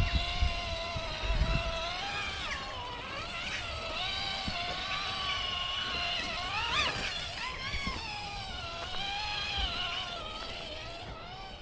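RC rock crawler's electric motor and gearbox whining as it crawls over rocks. The pitch rises and falls with the throttle, with a sharp rise and fall about seven seconds in.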